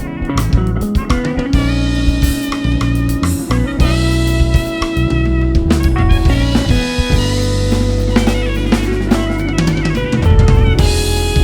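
A live band plays an instrumental passage: a drum kit with Soultone cymbals, kick and snare, over guitar and a sustained bass line.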